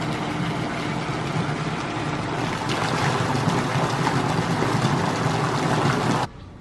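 Otowa waterfall's thin streams of water falling and splashing into the stone pool below: a steady rushing splash that grows louder about two and a half seconds in, then cuts off abruptly near the end.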